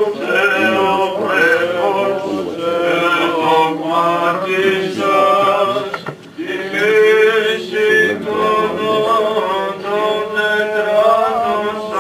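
Male cantors singing Orthodox Byzantine chant: a slow, ornamented melody held over a steady low drone note, with a brief pause for breath about six seconds in.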